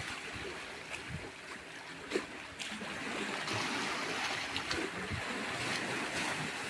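Sea water washing and splashing among shoreline rocks, a steady wash, with one brief knock about two seconds in.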